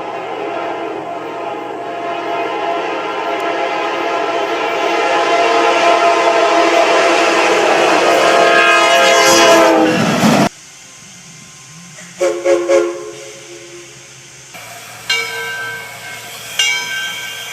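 Locomotive air horn sounding one long, steady blast that grows louder for about ten seconds and drops in pitch just before it cuts off suddenly. It is followed by several shorter horn blasts from another locomotive.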